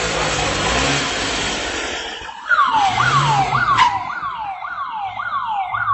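A vehicle engine running with road noise, then about two and a half seconds in an electronic siren starts, each cycle jumping up in pitch and falling back, about twice a second.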